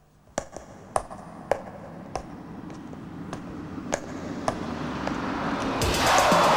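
Hard-soled footsteps on a hard floor, a sharp click roughly every half second to second, over a slowly rising rushing noise that swells up loud near the end.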